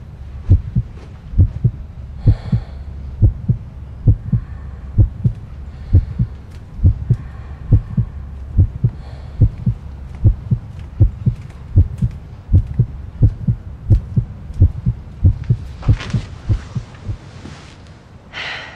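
Horror-film heartbeat sound effect: a steady low double thump about once a second. A few breathy hiss sounds sit over it, the loudest near the end.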